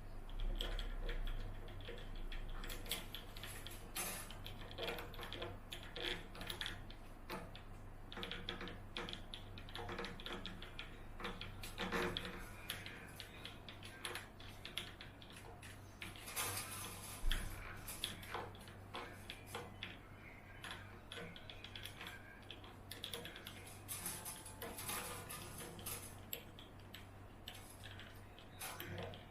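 Irregular small clicks, taps and rattles of objects being handled, over a steady low electrical hum.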